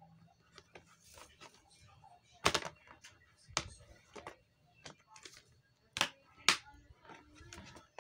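Hard plastic exhaust fan housing and grille being handled: scattered clicks and taps of plastic, with four sharp knocks, the loudest about two and a half seconds in and about six seconds in.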